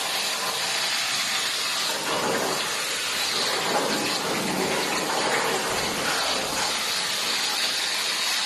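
CNC plasma torch cutting 21-gauge sheet metal: a steady, even hiss.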